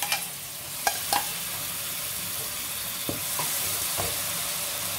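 Okra and green chillies frying in a wok, sizzling steadily in hot oil as yogurt chutney is spooned in, the hiss growing a little louder after about two seconds. A few light spoon clinks come in the first second or so.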